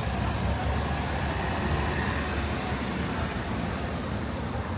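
Steady city street traffic: road vehicles passing with a continuous low engine rumble.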